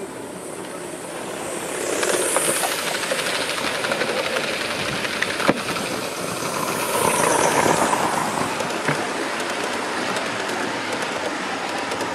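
Gauge 1 live-steam model locomotive running past close by with its train, its wheels clicking over the track and its exhaust hissing. It grows louder about two seconds in and peaks again around seven seconds.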